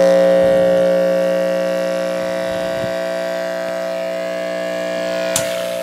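Car-audio speakers wired straight to a 120-volt wall outlet, buzzing with a loud, steady mains hum rich in overtones. A sharp crackle near the end is a spark from the mains hookup.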